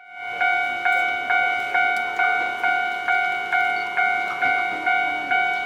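Japanese railway level-crossing warning bell starting up and ringing: an electronic bell-like tone struck about twice a second, each strike fading before the next.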